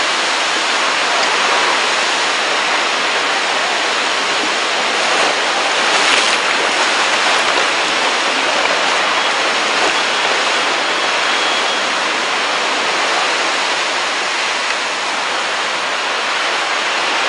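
Steady rushing of churned-up seawater and waves surging and washing around a freshly launched ferry hull and against the quay.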